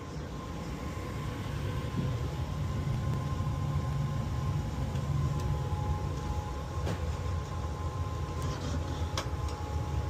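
Rheem 80% efficiency gas furnace running with a steady low rumble and a faint steady whine. It grows a little louder over the first two seconds, and there are a few light clicks near the end.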